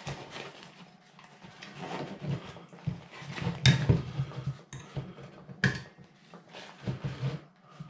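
Folded metal camping stove being stuffed into its fabric carry bag: rustling and handling noise, with two sharp clicks of metal parts about four and six seconds in.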